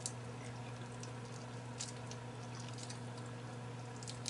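Fingers peeling a cooked shrimp from a seafood boil: a few faint, sharp crackles and wet clicks of the shell coming away, over a steady low electrical hum.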